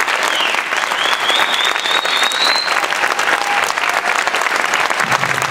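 An auditorium audience applauding with dense, steady clapping. For about two seconds near the start, a high, wavering, whistle-like tone rises over it.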